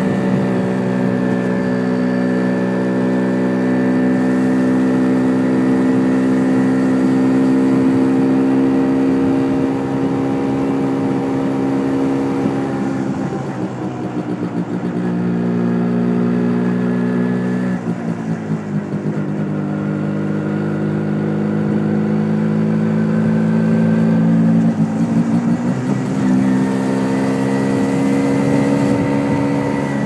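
MZ ETZ 250's single-cylinder two-stroke engine running under way, heard onboard with wind noise over the microphone. Its note drops about 13 seconds in and again near 18 seconds, then climbs back about 25 seconds in. The engine runs a bit lean on an undersized main jet (110 instead of 125).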